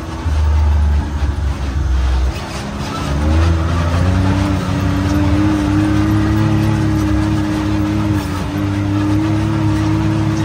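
Can-Am Maverick X3 side-by-side's turbocharged three-cylinder engine running under load, its pitch rising about three seconds in and then holding steady. A heavy deep rumble runs through the first two seconds.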